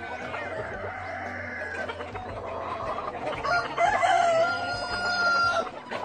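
Roosters crowing, one after another. A fainter crow trails off in the first two seconds, then a long, held crow runs from about three and a half seconds in to near the end, with hens clucking underneath.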